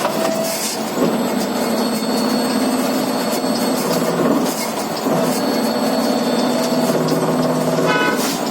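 Electric bus running: a steady low-pitched whine over rattling road noise. The whine breaks off briefly a few times, and a quick run of ticks comes near the end.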